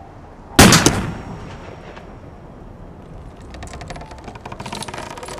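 A single loud gunshot goes off about half a second in and rings away within a second. Near the end comes a run of faint, quick rattling clicks.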